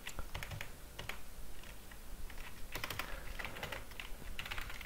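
Typing on a computer keyboard: uneven runs of quick key clicks with short pauses between them.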